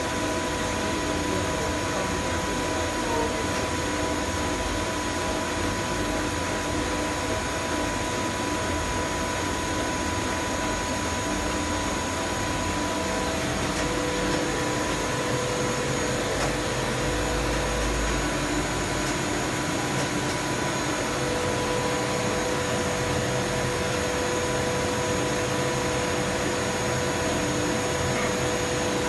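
Plastic blown film extrusion line running steadily: a constant whirring drone from its motors and blower, with several steady whining tones over it.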